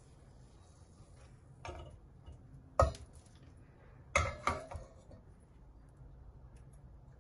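A silicone spatula scraping and knocking against a non-stick cooking pot: a light knock, then a sharp one near the middle, then a quick cluster of two or three knocks.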